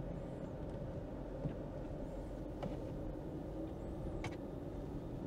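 Steady low rumble of a Jeep Grand Cherokee's 5.7 HEMI V8 and tyres at low speed, heard from inside the cabin, with a few faint clicks.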